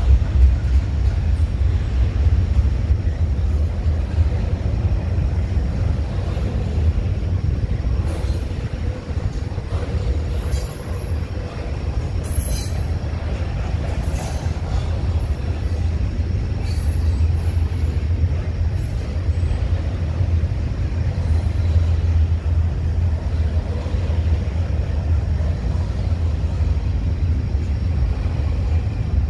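Double-stack intermodal container train rolling past: a steady low rumble of the cars on the rails. A few short, high wheel squeaks and ticks come through about a third to halfway in.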